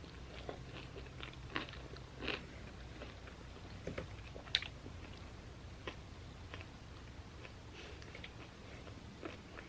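Close-up chewing of a mouthful of food, with soft crunches and wet mouth clicks coming irregularly, thinning out after about halfway.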